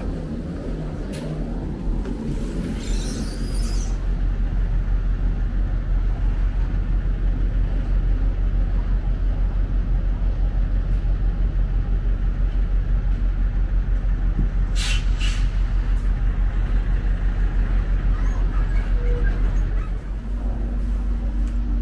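Heavy engine or machinery rumbling steadily with a fast, even throb. A hiss comes early, two sharp clicks fall past the middle, and a steady low hum sets in near the end.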